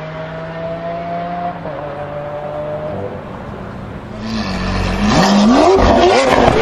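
Supercars accelerating hard away down a drag strip, the engine note climbing steadily and dropping once on an upshift about one and a half seconds in. About four seconds in, a Lamborghini Aventador's V12 is revved in repeated sharp rising-and-falling blips, much louder.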